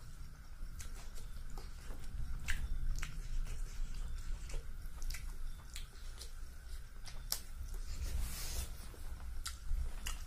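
Close-miked eating sounds: fingers working through rice and fish curry, and chewing with scattered wet mouth clicks. There is a brief breathy noise about eight seconds in.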